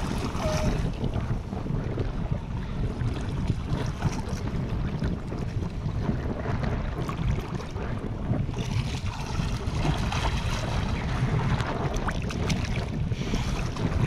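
Wind buffeting the microphone in a steady low rumble, over the wash of moving water.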